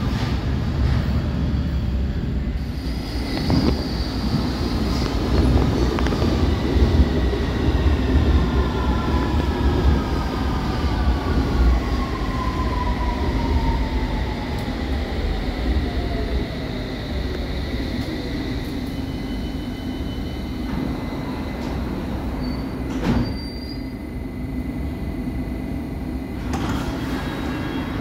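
London Underground S Stock train (Bombardier Movia) arriving and braking: its traction motors whine down in pitch as it slows over a heavy rumble of wheels on rail. The rumble eases as the train comes to a stand about two-thirds of the way through.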